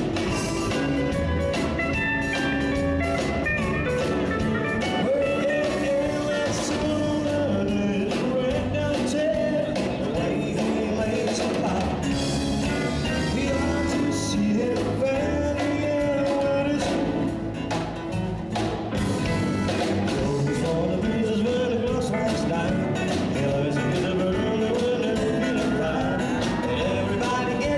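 Live band music: a steel guitar lead sliding between notes over electric bass, drums and electric guitar.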